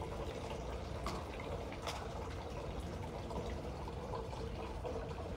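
Steady trickle of running water, with one sharp click about two seconds in.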